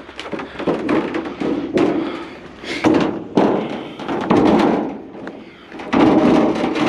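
A series of irregular knocks and thumps, with rustling and scraping in between.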